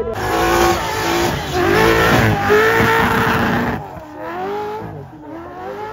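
Race car engine revving hard, its pitch rising and falling, cutting off abruptly about four seconds in.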